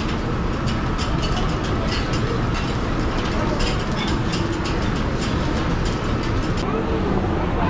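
Metal spatula clicking and scraping on a teppanyaki flat-top griddle as shrimp are turned, many short clinks over a loud, steady low rumble of the kitchen.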